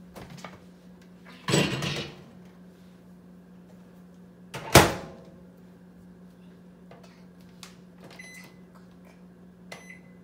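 A countertop microwave oven being loaded and set. The covered plastic pot is handled in, the door shuts with a single loud slam halfway through, and near the end the keypad gives short high beeps as the buttons are pressed to enter the cooking time. A steady low hum runs underneath.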